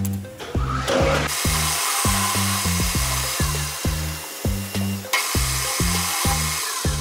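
Background music with a steady beat. From about a second in until about five seconds in, a metal lathe runs over it with a steady rushing noise that stops suddenly.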